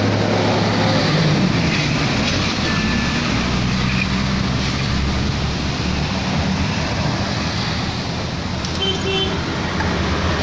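Steady engine hum and traffic noise, with a few brief metallic clinks about nine seconds in.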